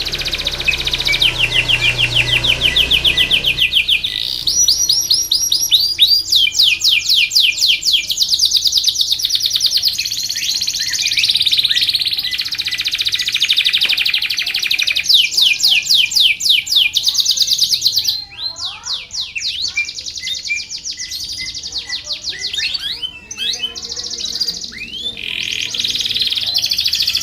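Domestic canary singing a long, continuous song of fast rolling trills, each a rapid run of repeated notes. It switches to a new trill every few seconds, with a looser stretch of separate chirps partway through.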